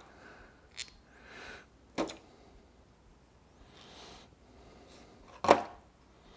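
Mower blade bolts and washers being dropped into a small container of petrol: a few sharp clinks, the loudest about five and a half seconds in, with soft handling rustles between.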